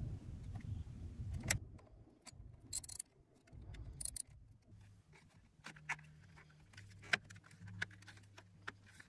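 Small socket ratchet clicking in short bursts as the starter battery's terminal nut is tightened, with metal clinks of the tool and a few lighter handling clicks near the end.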